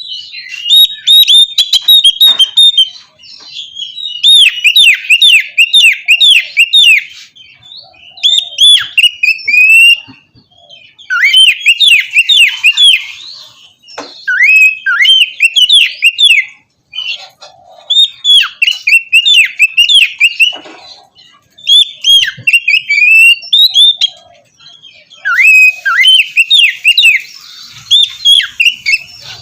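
Oriental magpie-robin (kacer) singing: about eight bursts of rapid, swooping whistled notes, each two to three seconds long, separated by short pauses.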